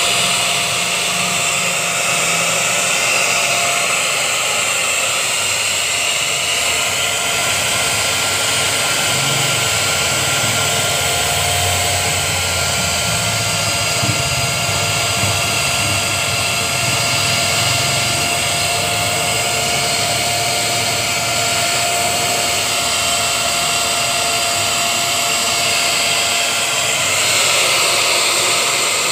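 Bagless canister vacuum cleaner running steadily: a high motor whine over rushing airflow as its hose sucks up spilled baking soda. The tone shifts slightly near the end.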